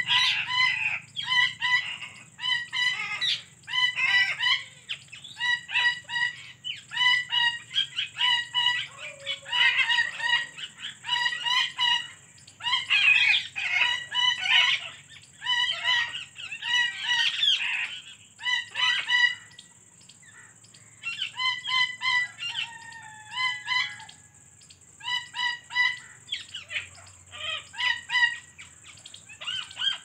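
Alexandrine parakeet making short, repeated chirping calls in quick clusters, with a brief lull about twenty seconds in.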